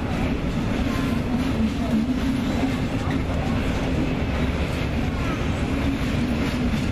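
Red double-deck regional passenger train rolling past over the tracks: a steady rumble of wheels on rail with a low hum underneath.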